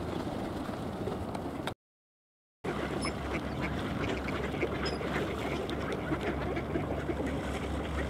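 A flock of mallards quacking, many calls overlapping, over a steady low rumble. The sound drops out completely for about a second, about two seconds in.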